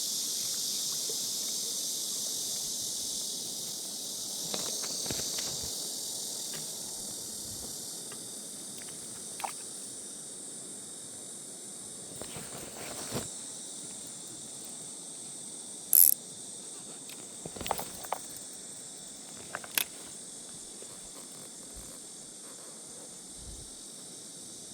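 Steady high-pitched chorus of insects that slowly fades. A few short, sharp clicks or knocks break in, the loudest about two-thirds of the way through.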